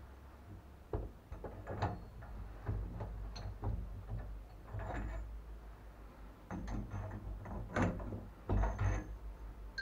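Irregular clicks, knocks and clinks from hand tools and shower valve parts being handled, a few with a short ringing after them.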